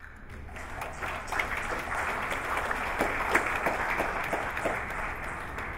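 Audience applauding: a dense patter of many hands that swells over the first second, holds steady, and dies away near the end.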